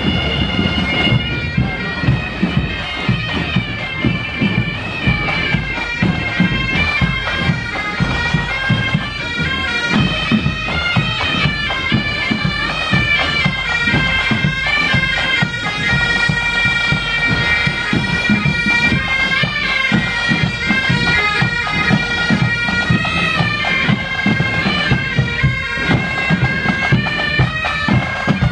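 Pipe band marching and playing: several bagpipes sound a melody over their steady drones, with snare and bass drums beating time underneath.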